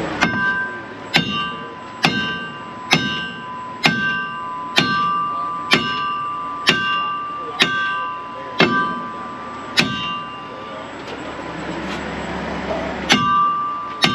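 A hammer striking steel, about one ringing blow a second, some eleven in a row; after a pause of a few seconds the blows start again near the end.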